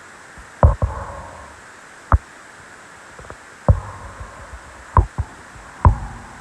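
A series of short, sharp knocks or taps at irregular intervals, about seven in all, some falling in quick pairs.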